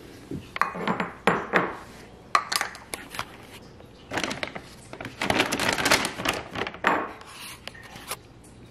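Bag of dry cat food crinkled and shaken by hand in several bursts, the longest in the middle.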